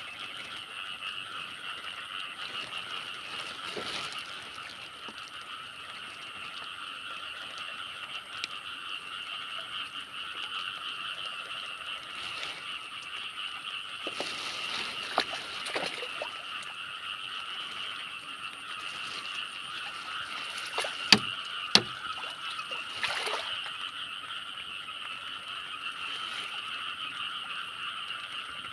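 Steady chorus of frogs calling, unbroken throughout, with two sharp clicks close together about two-thirds of the way through.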